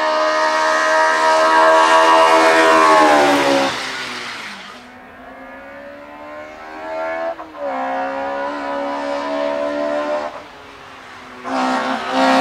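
Hillclimb race car engines at high revs. The first, a Schneider VW Polo Coupé 16V, runs hard and then falls away about four seconds in. The next car, a Fiat 127 Sport, climbs through the gears further off, with a shift about seven seconds in, and comes up loud near the end.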